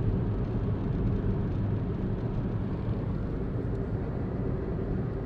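Steady road noise of a car driving on a highway, heard from inside the cabin: an even low tyre and engine rumble.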